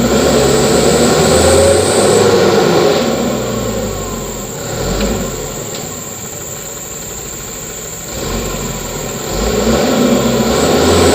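Mitsubishi Canter truck's diesel engine working under load, louder for the first few seconds, easing off in the middle, then building again near the end.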